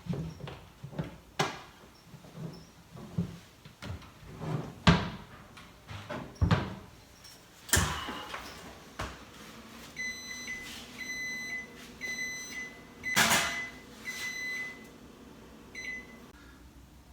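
Microwave oven with a newly replaced fuse: a run of sharp knocks and clicks from handling it, then a series of electronic beeps at one pitch, each about half a second long, with a loud click in the middle of them.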